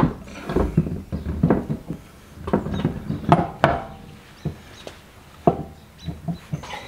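Spare wheel and tyre being worked onto the hub by hand: irregular knocks and scrapes as the alloy rim bumps and slides against the wheel studs while its holes are lined up.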